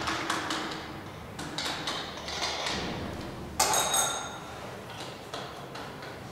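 Glass beakers clinking and knocking as they are handled on a lab bench, with a sharp ringing clink of glass on glass about three and a half seconds in and another just after.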